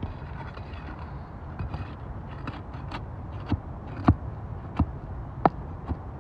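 Handling sounds on an asphalt shingle roof: a few light taps and scrapes, then five sharp knocks over the last three seconds, over a steady low rumble.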